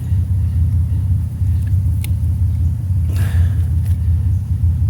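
A vehicle engine idling with a steady low rumble, with a few light clicks and a short rustle a little after three seconds in.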